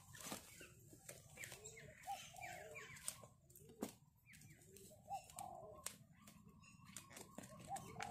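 Faint bird calls, short arched notes recurring every second or two, with scattered sharp clicks and taps from clear plastic sheeting and clip locks being handled against a PVC pipe frame. The loudest click comes about halfway through.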